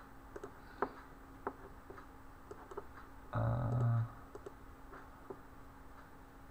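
Scattered single clicks of a computer mouse over a faint steady electrical hum. About halfway through, a brief low humming sound lasting under a second is the loudest thing.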